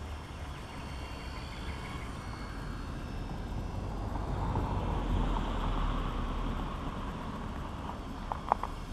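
A motor noise swells to a peak about five seconds in and fades again, as of something passing close by, with a few sharp clicks near the end.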